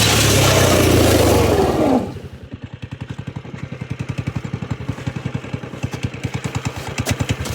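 Small 120 kids' snowmobile engine running fast, its pitch falling as it slows. About two seconds in, it drops abruptly to a steady puttering idle.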